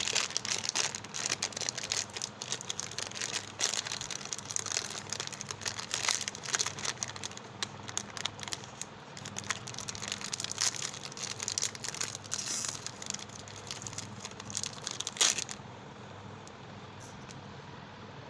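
Plastic wrapper of a Chupa Chups lollipop crinkling and crackling as it is twisted and pulled off by hand, with one sharp loud crackle about fifteen seconds in. After that the crinkling stops.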